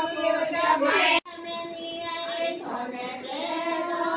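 Several women singing a song together. About a second in, the sound cuts out abruptly and comes back quieter, with one long held note.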